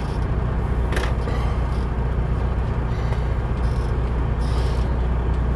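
Semi truck's diesel engine running with a steady low drone, with a single sharp click about a second in.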